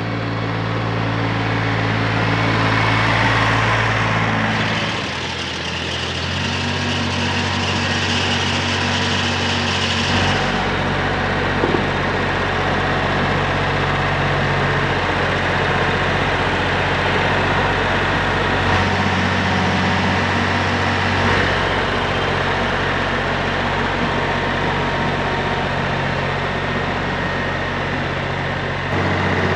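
Small farm tractor's engine running, its speed stepping up and down a few times as the front loader is worked.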